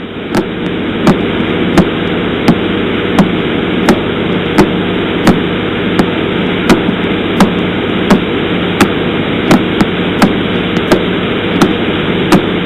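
Radio-telescope signal of a pulsar turned into sound: steady static hiss with a sharp click about every 0.7 seconds, one for each pulse as the star rotates.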